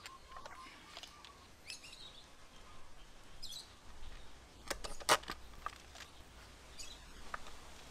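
A few sharp metallic clicks from a Phillips screwdriver working the air filter box bolts, the loudest about five seconds in. Faint bird chirps sound in the background.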